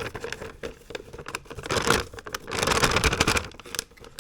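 Dry snickerdoodle cookie mix pouring from its packet into a mixing bowl, the packet crinkling, with two louder rushing spells.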